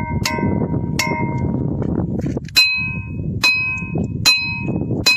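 Ringing rocks struck with a sledgehammer: six sharp strikes, each ringing on like a bell. The first two ring lower. The last four, from about two and a half seconds in, ring higher and brighter, about one a second.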